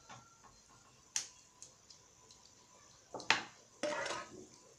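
A wooden spoon knocking and scraping against a frying pan and a glass baking dish as sauce is spooned out: a sharp knock about a second in, a louder one about three seconds in, then a short scrape.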